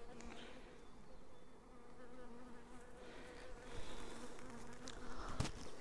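Honeybee colony buzzing on the combs of an opened hive, a steady low hum. A single sharp click about five seconds in.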